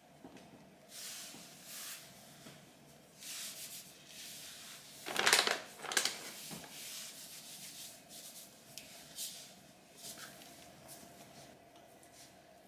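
Rye flour being sprinkled and rubbed by hand over a work surface: a run of soft dry swishes and rubs, the loudest pair about five to six seconds in.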